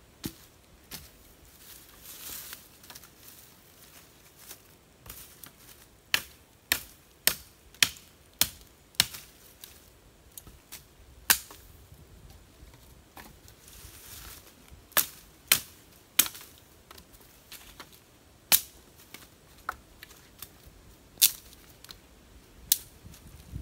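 Machete blade striking a wooden stick as it is chopped and shaped: about a dozen sharp knocks at uneven intervals, a quick run of them about six to nine seconds in.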